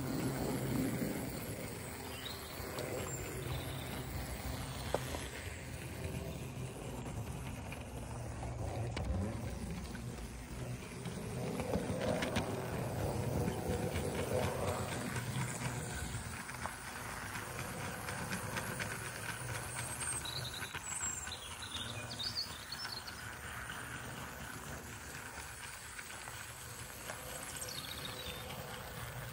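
A 00 gauge model GWR 'Bulldog' 4-4-0 locomotive running along the track, its small electric motor humming steadily and its wheels rolling on the rails. A few bird chirps sound about 3 seconds in and again past the middle.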